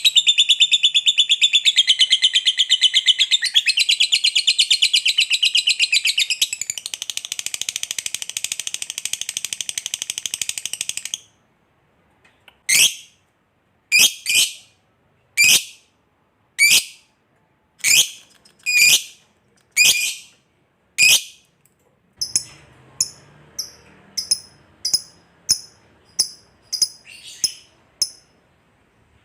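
Lovebird ngekek panjang: a long, rapid, unbroken chattering trill for about eleven seconds, then a string of sharp single calls, each falling in pitch, about one a second, then shorter high chirps about two a second.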